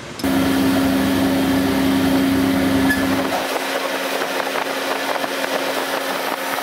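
Metal-forming press running as it deep-draws a flat metal disc into a pot: a loud, steady machine hum with a hiss, starting abruptly about a quarter second in. The lower rumble drops out about three and a half seconds in while the hum carries on.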